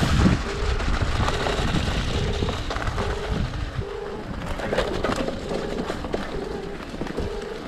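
Mountain bike riding over a rough trail: a steady rumble of tyre and wind noise with scattered rattles and knocks. A short low tone repeats about once a second.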